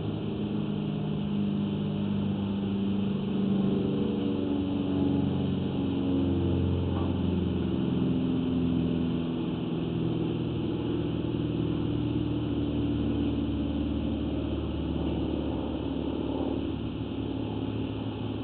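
An engine running, its pitch wandering up and down a little.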